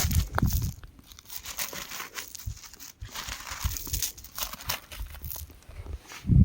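Crumbling rock: many small scattered crackles and clicks of loose grit and stone. A louder low rumble comes in the first second.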